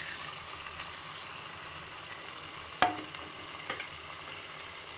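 Chunks of elephant foot yam frying in thick tomato-spice masala in a pan, with a steady sizzle. A sharp clack of the spatula against the pan comes a little under three seconds in, and a lighter tap about a second later.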